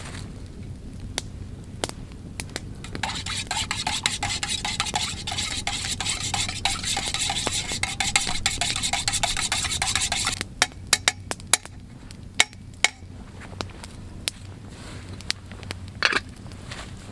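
A spoon stirring and scraping inside a metal camp pot of coffee for several seconds, pressing out the steeped coffee bags. This is followed by a few sharp separate clinks and one ringing clink near the end.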